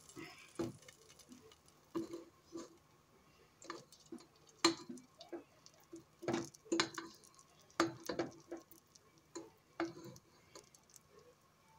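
Irregular sharp ticks and pops, one or two a second, from bacon grease melting and heating in a large pot on a gas burner.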